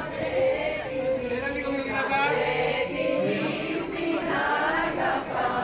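A group of voices singing together, with held notes that waver in pitch.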